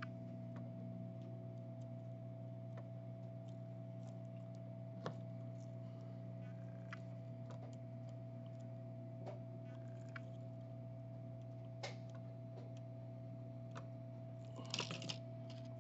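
Steady electrical hum of bench equipment with a thin high tone over it, and scattered light clicks and taps of small soldering tools working on a phone circuit board, with a brief rustle near the end.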